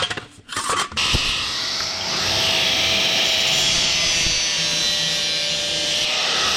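A few knocks and clicks, then about a second in a handheld power tool starts and runs steadily with a loud, high hiss, on rusty metal during a rust repair.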